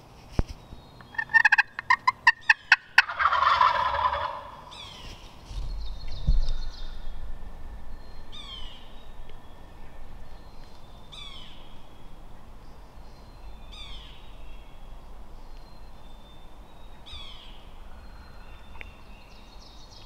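Wild turkey sounds: a quick run of about seven yelping notes, answered at once by a loud rolling gobble lasting about a second and a half.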